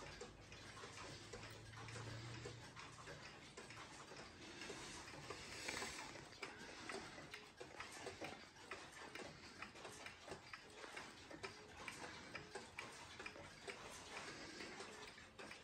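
Kassel 31-day pendulum wall clock's movement ticking faintly and steadily. There is a brief rustle about six seconds in.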